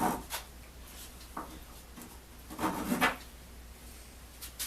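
A few scattered handling sounds: a short knock, a louder rustle and a click, like wooden and metal parts being picked up and set down.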